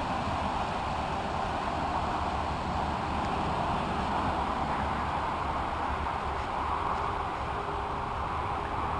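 Steady outdoor background noise: an even hiss with a low, fluttering rumble of wind on the microphone, and no distinct events.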